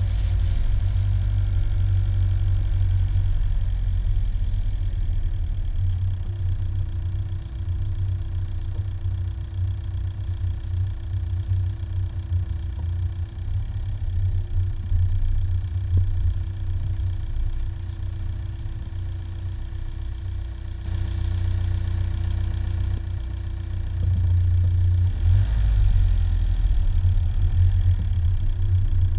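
A car driving slowly, heard from inside the cabin as a steady low rumble of engine and tyres with a faint steady hum. It grows louder again near the end.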